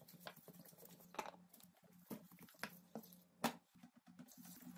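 Drinking water poured from a plastic bottle into a large glass jar of chopped apples: faint, with scattered small clicks and splashes over a steady low hum.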